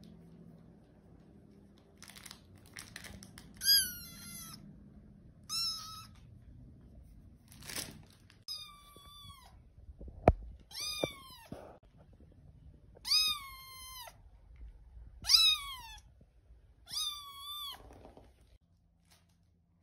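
Young tuxedo kitten meowing over and over: about eight thin, high meows roughly two seconds apart, each dropping in pitch at its end, the needy crying of a kitten wanting attention. A single sharp click about ten seconds in.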